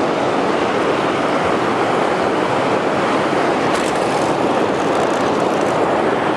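Steady, even rush of a fast-flowing river's current and rapids around an inflatable boat.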